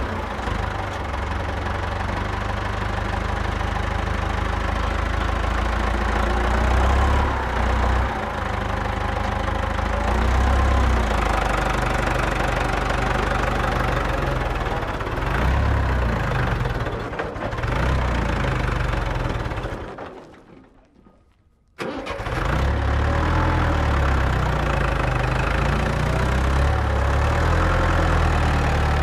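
Mini tractor's 12-volt 775 DC motor and gear drive running under load as it pushes sand with its front loader blade, the pitch shifting as the load changes. About 20 s in the sound dies away, then it starts again abruptly about two seconds later.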